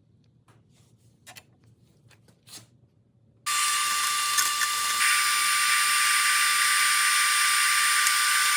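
A few faint clicks, then about three and a half seconds in dust suction cuts in abruptly: a loud, steady rush of air with a high whine, drawing out sawdust packed inside the table saw's cabinet.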